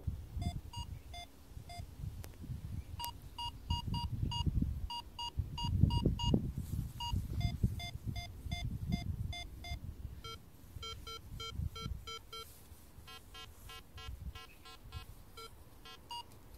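Air Metal Detector's target tones from its smartphone app: runs of short quick beeps as the coil sweeps over coins, the pitch changing from one run to the next (a mid tone, a higher tone, then higher and lower tones alternating) as the target ID changes. A low uneven rumble runs underneath.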